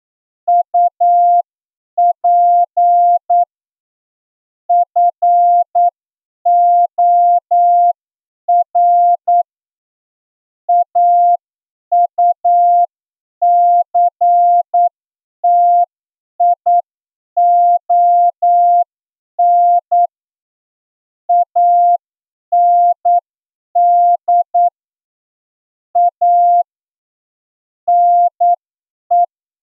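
Morse code practice transmission: a single-pitch tone keyed on and off in short dots and longer dashes, with pauses between letters and words, sent at about 8 words per minute for an amateur radio receiving test.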